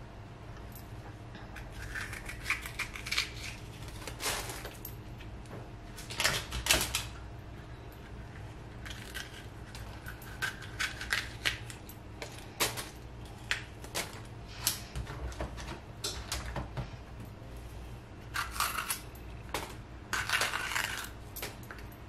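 Scattered light taps and clicks as green pepper pieces are set onto a parchment-lined metal baking tray and a knife is handled on a plastic cutting board, with paper rustling now and then, over a steady low hum.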